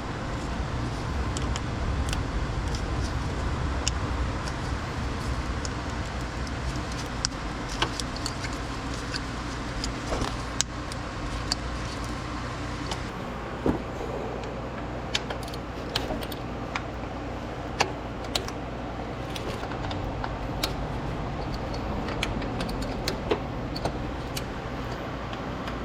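Scattered light metallic clicks and clinks of hand tools and parts being handled, over a steady low rumble.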